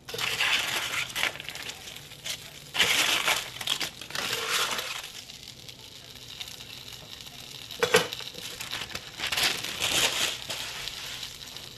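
Crumpled aluminium foil and parchment paper crinkling and rustling in several spells as they are handled, with a single sharp knock about eight seconds in.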